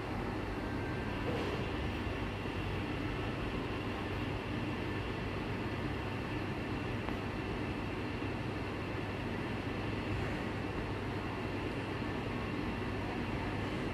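Steady background hum and rumble, a constant machine-like drone with no distinct events.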